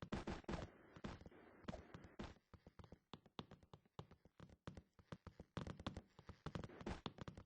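Hands handling things during an unboxing: quiet, irregular taps and clicks, with some rustling in the first couple of seconds.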